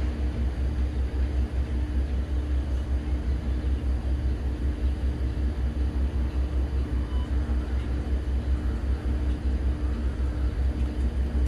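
A steady low rumble with a faint steady hum above it; the hum stops about a second before the end.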